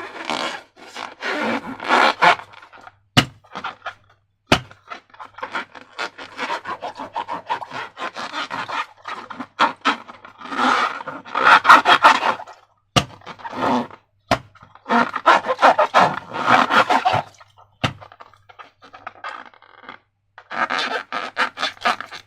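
Slime being squeezed and worked by hand against rubber balloons: irregular bursts of sticky squishing and crackling, broken by short pauses. A few single sharp clicks are mixed in.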